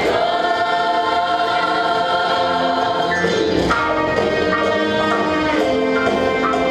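Show choir singing in full harmony, holding long chords that change a little past halfway.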